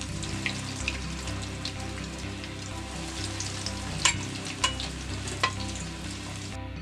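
Crumb-coated chicken spring rolls shallow-frying in hot oil in a pan: a steady sizzle full of small crackles, with three sharp pops in the second half. The sizzle cuts off just before the end.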